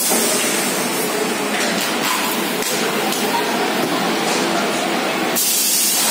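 Steady noise of a running TV assembly line, a continuous hiss with no clear rhythm, with a sharper, brighter hiss starting suddenly near the end.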